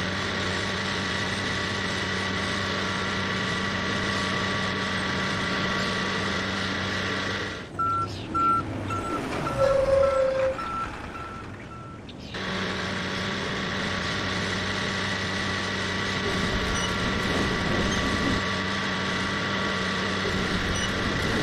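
Heavy construction machinery running with a steady drone. About eight seconds in, the drone cuts out and a warning beeper sounds in short beeps about twice a second for some four seconds, then the drone resumes.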